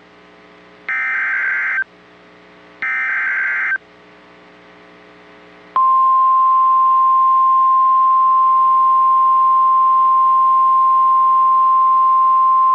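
NOAA Weather Radio SAME header: two roughly one-second bursts of warbling digital data tones. About six seconds in, the steady, loud 1050 Hz warning alarm tone starts. This is the coded header and attention signal that open a new warning broadcast.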